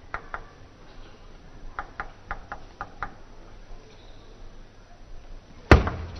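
Table tennis ball clicking sharply on the table and rubber-faced paddles: a couple of clicks at the start, then a quick run of about seven hits in a rally. Near the end comes a single, much louder thump, the loudest sound of all.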